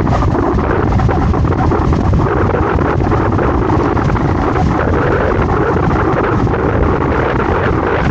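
Loud, steady wind buffeting the microphone of a camera riding on a moving scooter, a dense rumble with no breaks.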